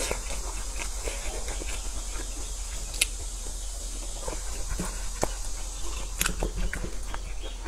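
Close-up mouth sounds of a person chewing grilled sausage: wet chewing and lip smacks with a few sharp clicks, over a steady hiss and a low hum.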